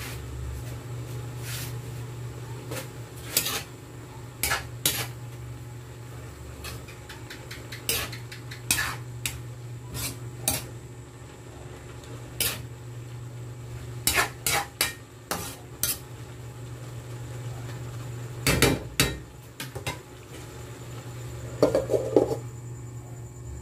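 Metal spatula scraping and clinking against an aluminium wok, stirring sliced banana heart, in irregular strokes over a steady low hum. Near the end an aluminium lid is set on the pan with a short ringing clang.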